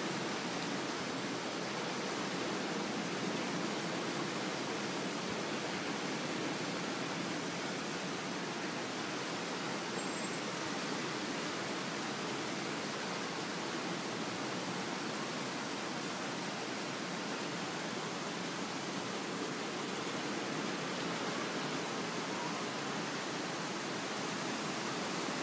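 Steady, even wash of ocean surf breaking along a beach.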